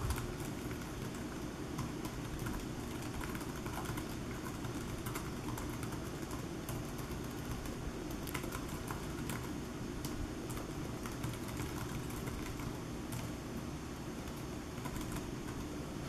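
Touch typing on the OneGx1 mini laptop's small keyboard: a quick, uneven stream of key clicks that runs on without pause.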